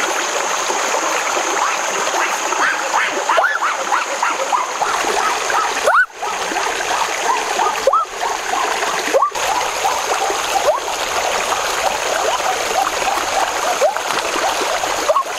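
Shallow stream running over rocks: a steady rush of water with many small bubbling plops. There are brief breaks about six and nine seconds in.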